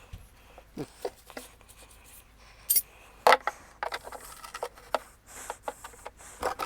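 Metal hand tools and parts clinking and rattling as they are handled, with a scrape or two and two sharper clanks about three seconds in.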